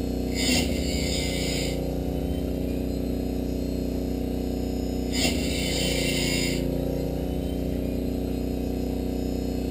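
Wood-Mizer bandsaw blade sharpener running with a steady motor hum. Its grinding wheel hisses across a blade tooth for just over a second, about half a second in and again about five seconds in, as it works tooth by tooth along the blade.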